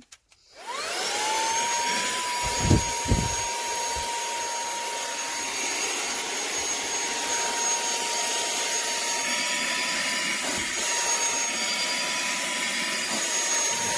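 SERVOMASTER cordless handheld car vacuum switched on: its motor spins up with a rising whine over the first second or two, then runs steadily with a high whine and a rush of air. Two dull knocks come about three seconds in.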